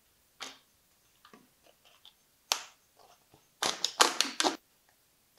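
Scissors cutting a thin plastic bottle: a few single snips and crackles of the plastic, then a quick run of four or five sharp snips near the end.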